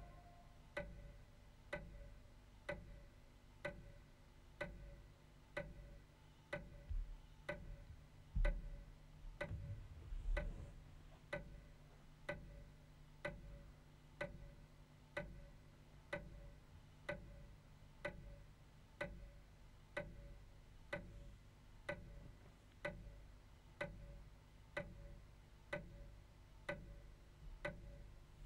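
Steady, even ticking like a clock, about one tick a second, over a faint low rumble, with a few dull low thumps partway through.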